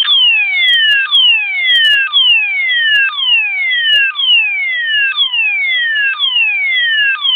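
Fulleon Roshni low-profile fire alarm sounder sounding its DIN sweep tone: a shrill falling sweep that starts abruptly and repeats about once a second.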